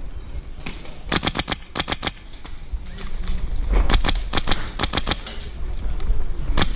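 Airsoft guns firing two rapid bursts of sharp shots, one about a second in and a longer one around four seconds in, over a low rumble.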